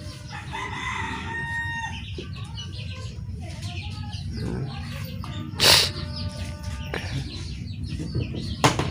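A rooster crowing once, a pitched call of about a second and a half near the start, with more chicken calls later on. A short, loud noise cuts in a little past halfway.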